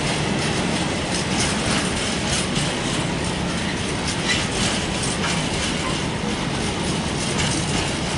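Empty container flat wagons of a freight train rolling past, a steady clatter of steel wheels on the rails with repeated clicks.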